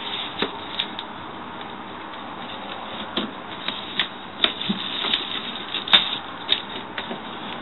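Packaging being handled while a laptop box is unpacked: scattered clicks, knocks and rustles over a steady hiss.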